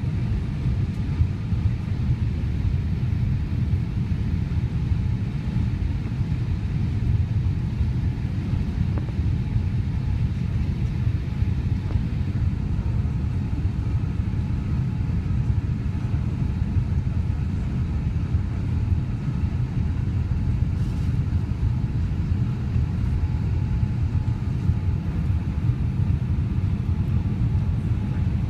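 Cabin noise of a Boeing 787 airliner descending on approach: a steady low rumble of engines and airflow heard from inside the cabin, without change.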